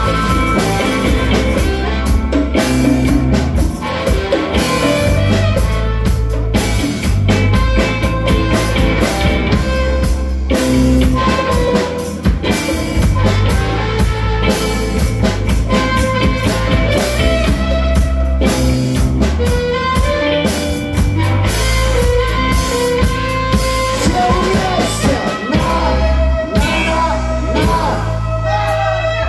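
Live rock band playing: electric guitars, bass and a drum kit with a steady beat, and a harmonica played over them.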